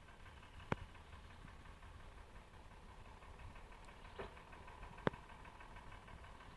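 Logging truck's diesel engine running steadily and faintly, with an even rhythmic clatter. A sharp click comes under a second in, then a knock and another sharp click after about four to five seconds.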